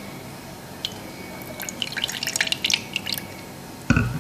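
Lemon juice concentrate dripping and splashing from a bottle, a quick run of small drips over a second or two. A single low thump follows near the end.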